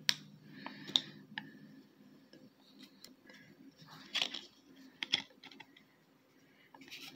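Handling sounds as the hang tag is taken off a plush toy: several sharp clicks and light rustling, the loudest clicks in the first second and another few around four to five seconds in.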